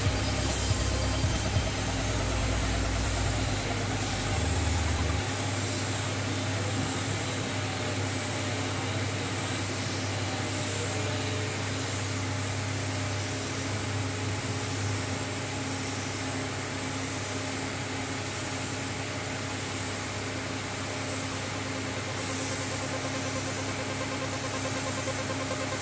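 Spray painting: the steady hiss of a compressed-air spray gun over a constant low machine hum, whose deepest part drops away about five seconds in.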